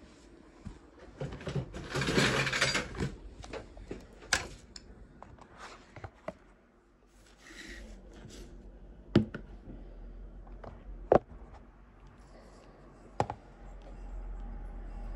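Handling noises on a wooden desk: a rustle of paper about two seconds in, a brief scrape near the middle, and several sharp knocks of objects such as a phone and a spinning reel being set down and picked up, two of them loudest later on.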